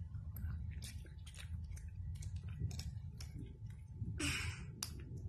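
Plastic food wrapping crackling and clicking as hands open and handle a rice packet and a plastic sambal sachet, with a longer rustle about four seconds in, over a low steady hum.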